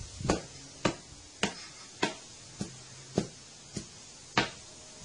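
A broom head slapping down hard on a tiled floor eight times, about one blow every 0.6 seconds, striking at a spider.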